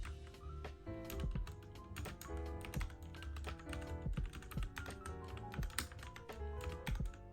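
Mechanical keyboard typing: a fast, irregular run of key clicks, with background music.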